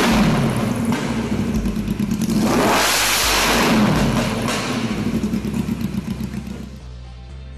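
Yamaha XJR1200 cafe racer's air-cooled inline-four engine running on a stand and being revved. One rev dies away just after the start, and a longer rev comes from about two and a half to four and a half seconds in. It then settles back to idle and fades near the end.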